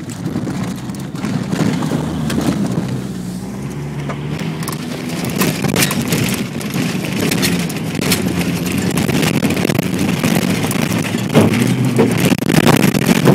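Jeep engine running as the vehicle drives, heard from inside the cab, with frequent short knocks and rattles, thickest in the second half.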